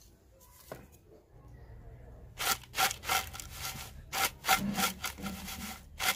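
Fried potato chips being tossed and shaken in a clay bowl to coat them with spices: a run of scraping, rattling strokes, several a second, starting about two seconds in.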